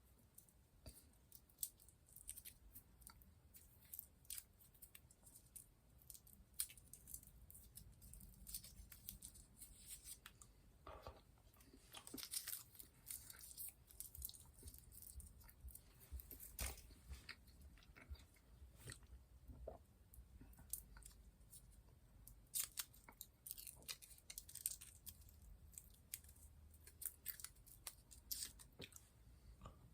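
Faint, close-up chewing of chocolate, with many small scattered clicks and crackles of mouth sounds.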